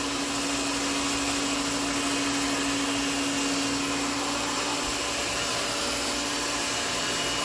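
Electric hand mixer running steadily with a constant motor hum, whisking flour-and-cornstarch slurry into gravy in a pot.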